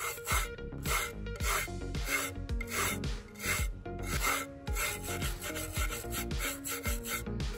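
Steel wire hand brush scrubbed back and forth over the rusted end cover of an old electric water pump motor, rasping strokes about twice a second as loose rust is scraped off.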